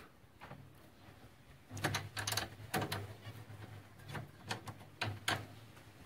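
A series of short metallic clicks and rattles from a wire birdcage being handled, its door or lid catch working. They start about two seconds in and come irregularly after that.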